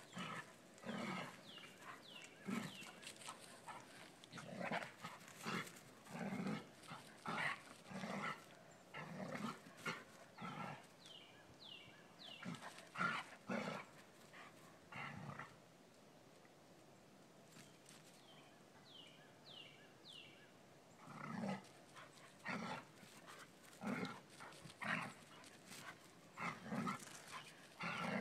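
Two Dobermans at play, a puppy and an adult dog, giving short barks and growls in irregular bursts, with a lull of a few seconds past the middle.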